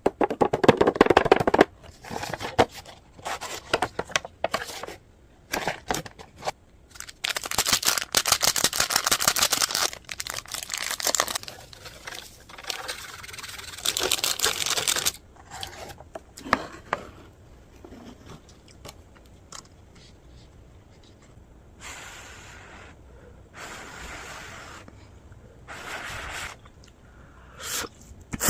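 Food packaging being torn open and crinkled in irregular bursts, with scrapes and dense crackling, loudest in the first half and softer later on.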